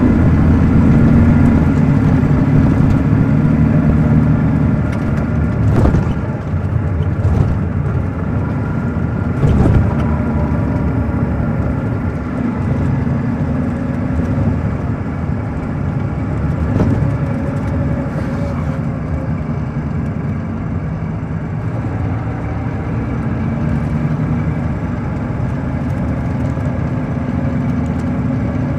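Caterpillar C13 ACERT diesel engine of a 2006 MCI D4500CL coach bus running steadily while under way, a little louder for the first few seconds. A few short knocks and rattles come about six and nine seconds in.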